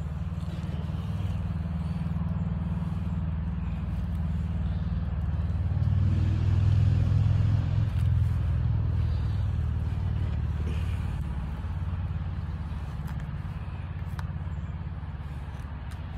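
Low, steady rumble of a motor vehicle's engine that swells to its loudest about halfway through, then slowly fades.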